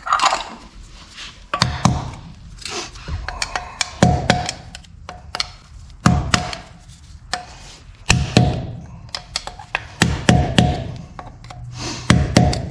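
Repeated sharp knocks on a truck wheel, about one every two seconds and some in quick pairs, each with a short metallic ring: a wheel center cap being tapped into place.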